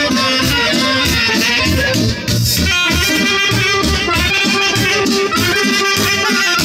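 Accordion-led folk music playing, with a steady rhythmic beat in the bass.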